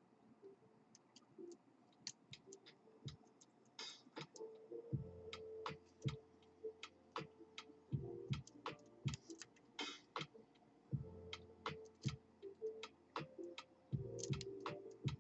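Pin tumbler lock being picked with a hook pick under tension: an irregular run of small, sharp clicks as the pick works the pins, mixed with stretches of low scraping and rubbing.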